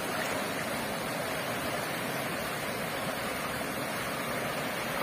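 Steady rushing of water from a small cascade pouring into a shallow stream.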